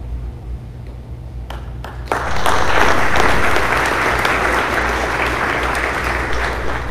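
Small audience applauding: a few scattered claps, then steady clapping from about two seconds in.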